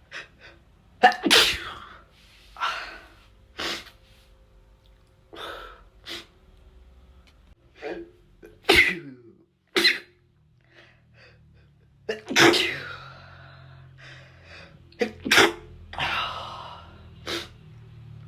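A person sneezing over and over: a run of sudden, loud sneezes, about half a dozen, spaced a second to a few seconds apart, with quieter sounds between them.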